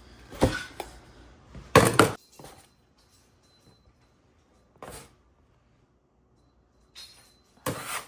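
A handful of short knocks and scrapes on a kitchen countertop as pretzel dough is cut into pieces and weighed, the loudest about two seconds in, with quiet gaps between.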